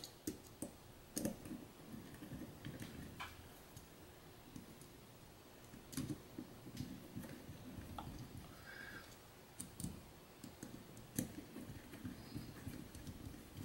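Faint, scattered clicks and light taps of a small screwdriver turning the screws of a bearing cover into a metal bearing block.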